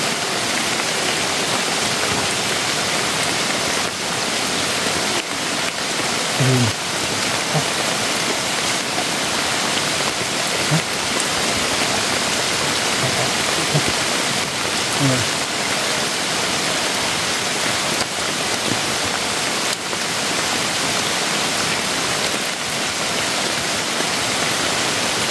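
Steady rain falling on bamboo forest and on a thatched, tarp-covered shelter, an even hiss throughout. A few brief, faint pitched sounds rise above it now and then.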